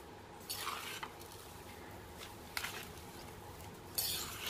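Metal spoon stirring carrot and radish pieces coated in mustard oil and ground spices in a stainless steel bowl: a few short, soft scraping swishes, about half a second in, near three seconds in, and again near the end.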